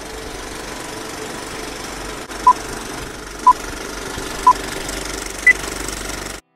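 Film projector clattering steadily under a countdown leader's beeps: one short beep each second, three at the same pitch and a fourth higher, then everything cuts off suddenly.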